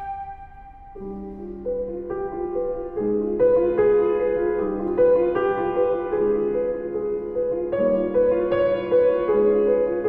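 Piano playing a steady repeating figure of notes in its middle register, part of a flute-and-piano piece. It enters about a second in, just after a held flute note dies away, and grows louder about three seconds in.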